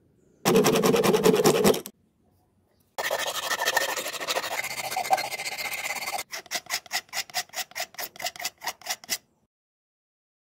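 Sandpaper on a spinning rod rasping against the inside of a PVC pipe fitting, sanding its bore smooth. A burst of about a second and a half, a longer stretch of about three seconds, then quick rhythmic rasps, about six a second.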